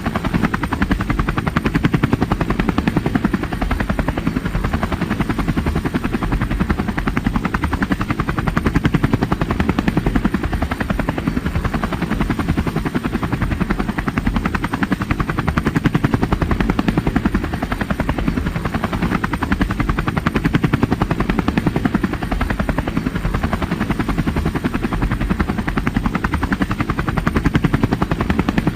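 Helicopter in flight: the rotor blades chop rapidly and evenly over a low engine drone, holding steady throughout.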